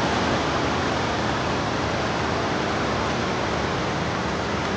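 Steady rushing of a river's flowing water, an even, unbroken noise.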